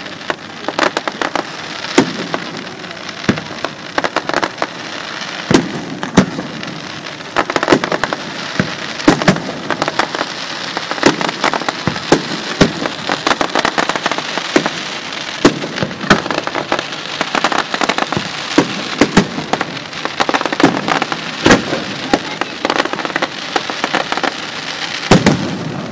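Aerial fireworks display by Pirotecnica Scarsella: shells bursting overhead in many sharp bangs, irregularly spaced, over a continuous dense crackle.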